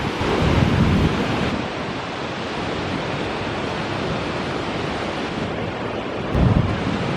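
Surf washing onto a sandy beach, a steady rush of waves that swells about a second in and again near the end, with wind buffeting the microphone.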